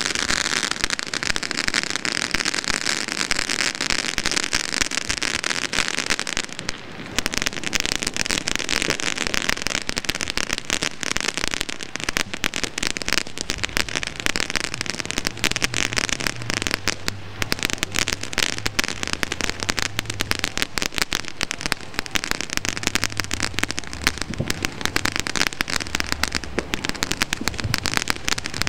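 Fireworks going off at ground level: a dense, continuous crackle of many rapid small pops that dips briefly about seven seconds in, then carries on.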